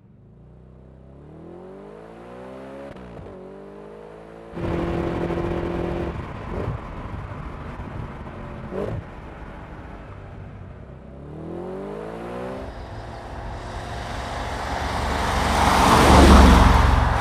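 Audi RS5 4.2-litre V8 accelerating, its engine note climbing in pitch several times as it pulls through the gears, with two short sharp revs in the middle. Near the end the car passes close by, the loudest part, with a rush of tyre and wind noise.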